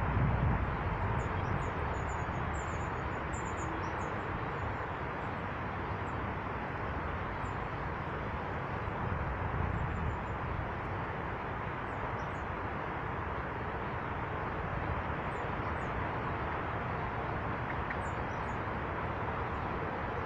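Small birds at a feeder calling in short, high chirps, thickest in the first few seconds and then scattered, over a steady rushing background noise.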